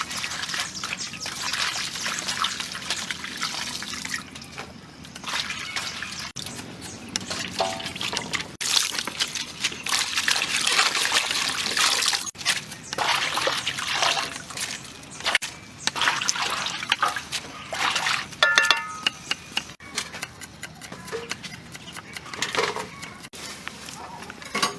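Water sloshing, trickling and dripping as leafy greens are swished by hand in a basin of water and lifted out.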